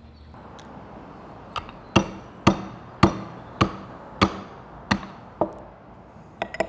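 Marble pestle pounding coarse rock salt chunks in a marble mortar: about eight sharp strikes a little over half a second apart, each with a short ring, the loudest about two seconds in.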